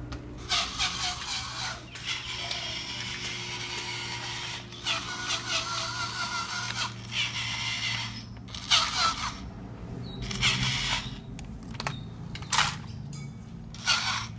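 Remote-control Thomas the Tank Engine toy train driving across floor tiles, its small motor and plastic gears whirring and its trailing plastic trucks rattling along. The whirring cuts out and starts again several times.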